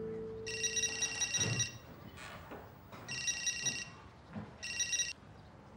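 Mobile phone ringing: an electronic ringtone of rapid high beeps, sounding in three bursts about a second long. The tail of background music fades out under it in the first second and a half.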